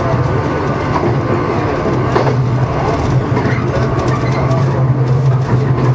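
JR East 115 series electric train running along the track, heard from the driver's cab: a steady low hum over continuous wheel-on-rail running noise.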